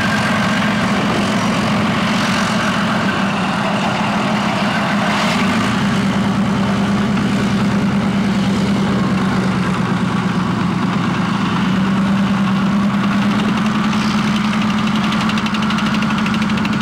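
Heavy armoured military vehicle's diesel engine idling steadily, with a constant low hum.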